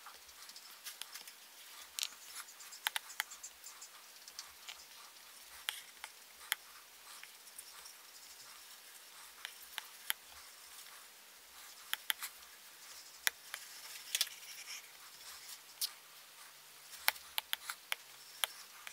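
Apple Pencil tip tapping on an iPad's glass screen: irregular light clicks, some in quick clusters, over a faint hiss.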